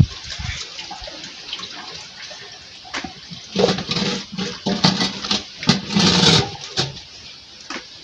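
Hands swishing and rubbing beans in a basin of water to wash off the chaff, with water sloshing and splashing in louder bursts through the middle.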